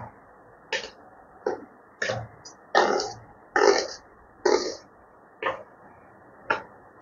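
Steel spoon scraping and stirring through dry semolina and gram flour in a stainless steel bowl, in short strokes about once a second.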